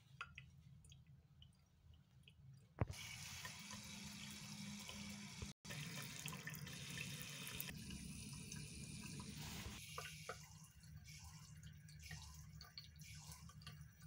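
Faint, thin stream of water from a basin tap with its aerator removed, splashing into a ceramic wash basin. It starts with a click about three seconds in, runs steadily, then goes quieter near the end. The weak flow is put down to air still in the hot water system.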